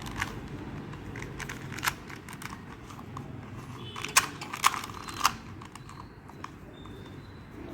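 A 2x2 Rubik's cube being turned by hand: scattered plastic clicks as the layers snap round, with a cluster of sharper clicks about four to five seconds in.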